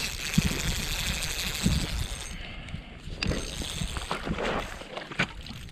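Wind rushing over the microphone, then a scatter of short clicks and knocks from a spinning reel and rod being handled.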